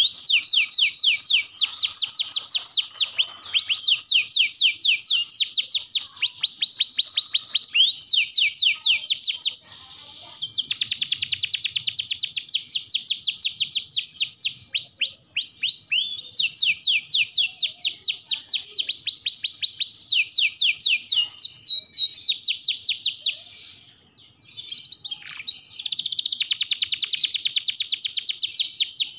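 Domestic canary singing long, rapid trills of repeated high notes, broken by a few short pauses.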